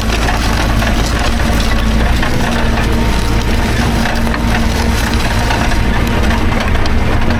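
Farm tractor engine running steadily, with a dense crackling rattle over it.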